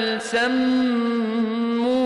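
Male reciter chanting the Qur'an in melodic tajweed, drawing out long held vowels with a slight waver, with a brief break about a third of a second in.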